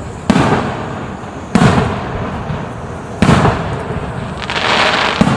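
Aerial fireworks shells bursting overhead: four sharp booms a second or two apart, each rolling away, with a hissing crackle building just before the last one.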